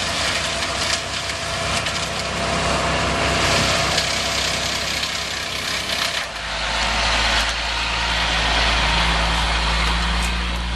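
A work truck's engine idling close by. Its steady low hum becomes much stronger about six seconds in, over a constant hiss.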